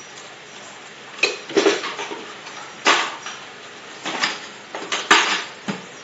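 Small metal cups and lids clattering on a tiled floor as macaws pick them up in their beaks and drop them: about seven irregular knocks and rattles, the loudest a little after the middle and near the end.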